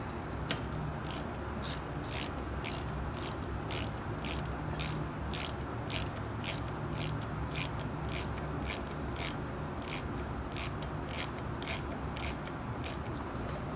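Quarter-inch-drive ratchet with an 8 mm socket clicking steadily, about two clicks a second, as its handle is swung back and forth to turn in the rear brake caliper's pad pin.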